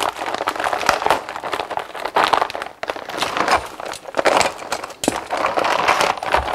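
Plastic bags and bubble wrap crinkling and rustling as parts are unpacked from them, coming and going unevenly with many small crackles.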